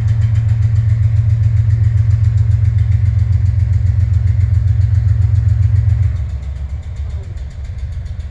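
CSX diesel-electric locomotive engine working hard with a fast, even, pulsing beat, a knock that the uploader takes for a rod knock. About six seconds in it drops back and runs quieter.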